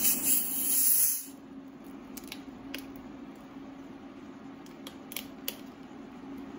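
A pan of seafood cooking on an induction cooktop: a steady low hum with a few faint pops and clicks. A loud hiss in the first second or so cuts off abruptly.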